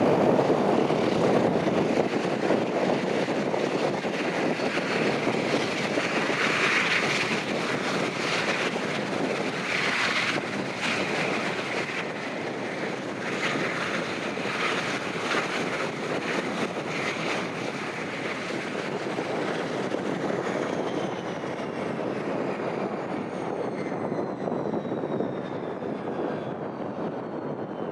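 The twin turboprop engines of a QantasLink Dash 8 Q200 running with a steady propeller drone as the aircraft taxis in. From about twenty seconds in, high whines fall steadily in pitch and the noise fades: the engines spooling down at shutdown.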